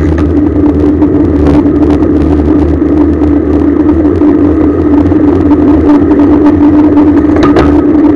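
Steady riding noise picked up by a bicycle-mounted camera on a road ride: loud rushing with a constant hum and low rumble, and a few short knocks about one and a half seconds in and near the end.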